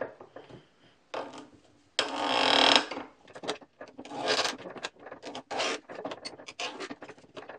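Plywood flange scraping and rubbing against the steel jaws of a bench vise as it is worked. Two longer scrapes come about one and two seconds in, then a run of short, quick scraping strokes near the end.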